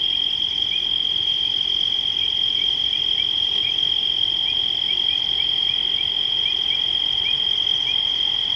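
Night insect chorus: a steady high-pitched trill, with short chirps dotted through it about twice a second.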